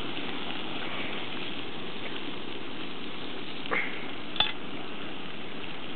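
A dishwasher burning in a large open fire: a steady crackling hiss of flames, with two sharp pops about four seconds in.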